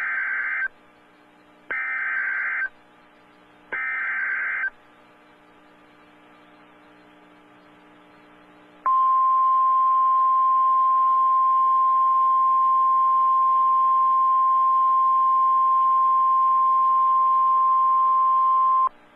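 Emergency Alert System broadcast over NOAA Weather Radio: three one-second bursts of buzzy SAME digital data tones, about two seconds apart, mark the start of a new alert. About four seconds later the steady 1050 Hz weather radio warning alarm tone sounds for about ten seconds and cuts off suddenly.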